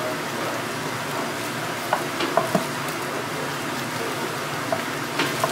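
A steady sizzling hiss of oil frying, with a few short, sharp knife clicks against a wooden cutting board as a braised pig's trotter is cut from the bone.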